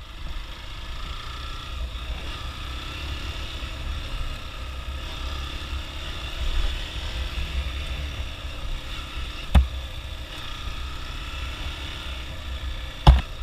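Hero XPulse 200 single-cylinder motorcycle riding along a dirt trail: a steady low engine drone with wind rumble on the microphone. Two sharp knocks, one a little past the middle and one near the end.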